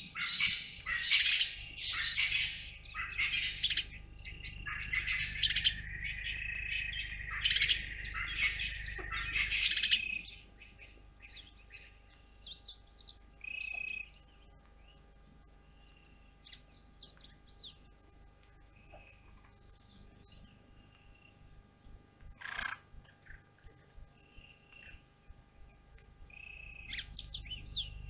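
Many small birds chirping and twittering at once, dense for about the first ten seconds, then thinning to scattered short chirps and whistles.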